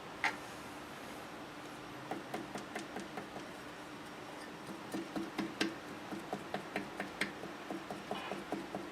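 Light metallic ticking, about three or four small ticks a second in two spells after a single sharp click, from the connecting rod being rocked and tapped on the crankshaft of a Suzuki Address 110 two-stroke engine to test its needle bearing for play. The bearing shows no knock.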